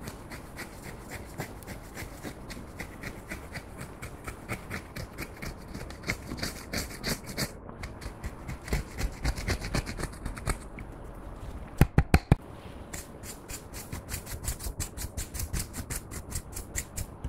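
Yellow plastic spatula scraping and crumbling pressed eyeshadow powder out of a heart-shaped compact, in quick repeated strokes of about three a second. About two-thirds of the way in comes a quick run of four sharp clicks.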